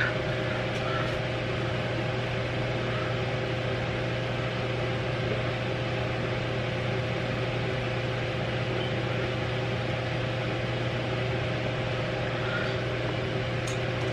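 Electric fan running steadily: an even whooshing noise with a low motor hum and a faint steady tone over it.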